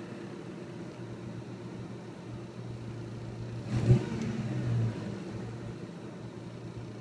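1996 Ford Ranger's 2.3-litre four-cylinder engine idling roughly, the idle the owner calls "kind of a rough idle". Near the middle there is a sudden sharp knock, and the idle runs louder for about a second before settling.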